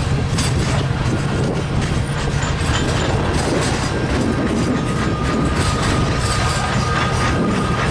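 Freight train cars rolling past, a steady rumble with the clickety-clack of wheels over rail joints. A thin, steady high squeal from the wheels joins about halfway through.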